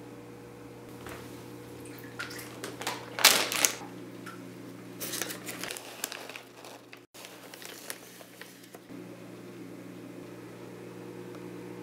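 Plastic pouch of Hikari turtle stick pellets crinkling and rustling as it is handled and opened and a hand reaches inside; the loudest crinkle comes about three seconds in, with more around five to six seconds. A steady low hum runs underneath.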